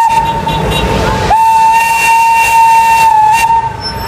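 Train whistle sounding in long, steady blasts. One blast ends about a second in, and after a brief gap another runs until about three and a half seconds in.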